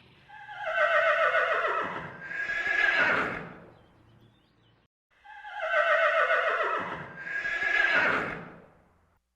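Horse whinnying: a long neigh that falls in pitch in two parts, heard twice about five seconds apart.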